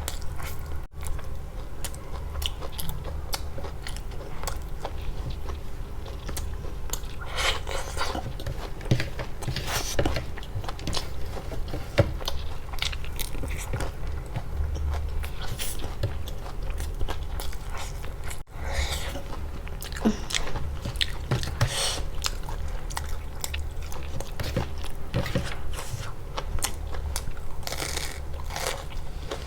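A person eating close to the microphone: irregular bites, crunching and wet chewing of food.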